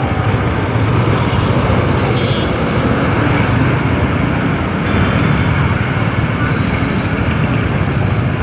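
Steady road traffic noise around a motorcycle, with a continuous low rumble and no distinct events.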